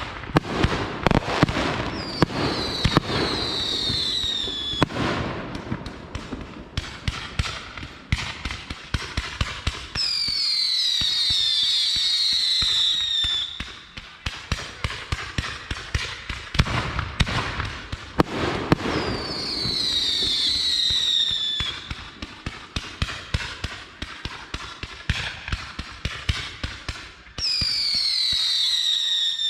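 Consumer fireworks going off in a rapid string of crackling pops. Four times, a burst of several shrill whistles falls in pitch together over two to three seconds.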